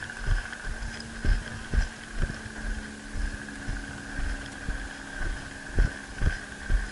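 Low thumps about twice a second of a player's footsteps jolting a body-worn camera as he walks, over a steady high-pitched hum.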